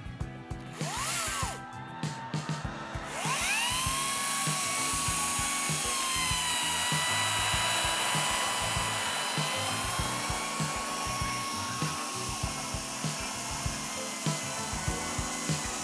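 Power tool motor spinning up with a rising whine about three seconds in, then running at a steady high pitch. Background music with a steady beat plays underneath.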